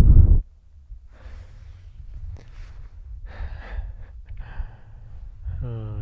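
A man breathing hard, one loud breath about every second, over a steady low rumble of wind on the microphone. A loud burst of wind noise cuts off abruptly in the first half-second, and the last breath near the end is voiced.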